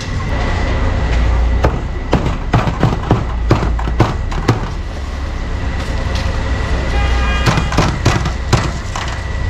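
Cleaver chopping meat on a chopping block: a run of sharp knocks about two seconds in, and another shorter run near the end, over a steady low hum of street traffic.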